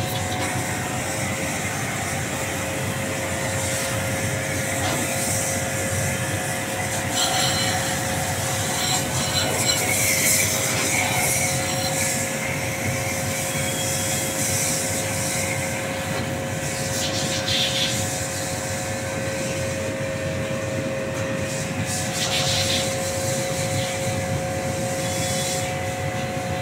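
A machine running with a steady hum, with short scraping or rubbing noises several times over it.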